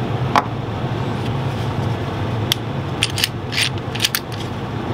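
Short metallic clicks and clacks of a semi-automatic pistol being handled and cleared: one click near the start, then a quick run of clicks in the second half, over the steady hum of an air conditioner.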